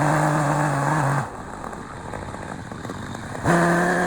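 Two-stroke chainsaw engine throttled up at the start, dropping back to a rough idle for about two seconds, then throttled up again near the end.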